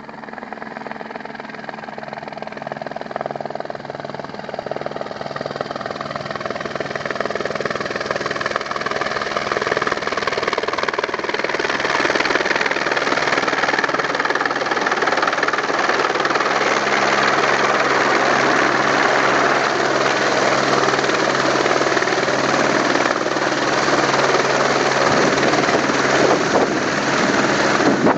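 Single-engine helicopter flying in and coming to a low hover overhead with a load slung beneath it. It grows steadily louder with a falling whine for about twelve seconds, then holds a loud, steady rotor and turbine noise.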